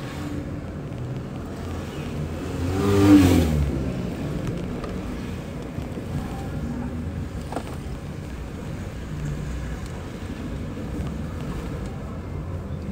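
Road and engine noise inside a moving car's cabin, a steady low rumble. About three seconds in, a louder sound falling in pitch rises and fades over about a second.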